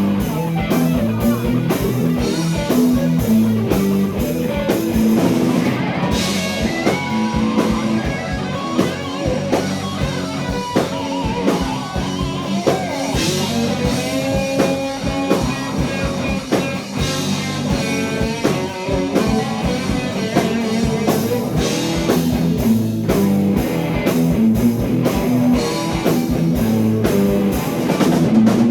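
Live heavy blues-rock band playing instrumentally: electric guitar lead over bass and a drum kit keeping a steady beat.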